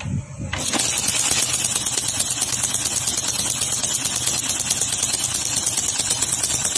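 Honda Shine single-cylinder engine turning over with the valve cover off. The exposed camshaft, rocker arms and timing chain make a steady rapid mechanical ticking with a strong hiss, starting about half a second in.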